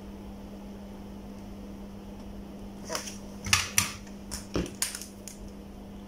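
Several short sharp clicks and light knocks, about seven of them between three and five and a half seconds in, from handling the plastic electric kettle base, over a steady low hum.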